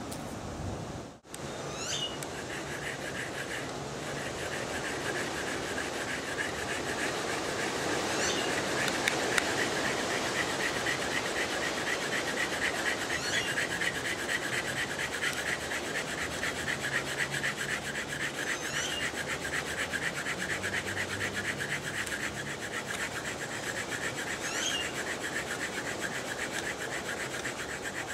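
Bamboo fire saw being rubbed rapidly back and forth across a notched bamboo fire board: a steady, fast rasping of bamboo on bamboo, starting about two seconds in, as friction is built up to make an ember.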